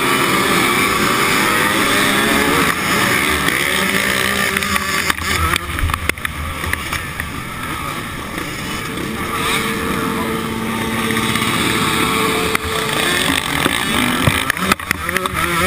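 A pack of motocross bikes' engines revving hard off the start line, the nearest and loudest being the rider's own KTM SX125 125 cc two-stroke, its pitch climbing and dropping repeatedly as it is worked up through the gears.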